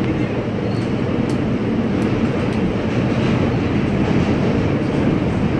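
R160A subway car running at speed, heard from inside the car: a steady rumble of steel wheels on rail, with a few faint clicks.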